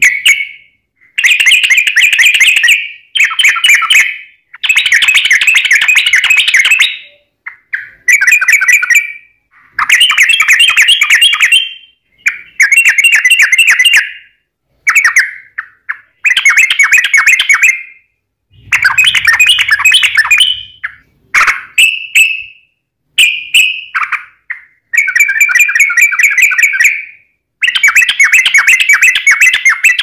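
Yellow-vented bulbul singing: a run of loud, rapid warbled phrases about one to two seconds long, separated by short pauses, about a dozen in all.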